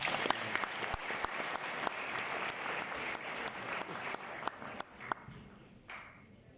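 Audience applauding, a dense patter of claps that thins out and dies away about five seconds in.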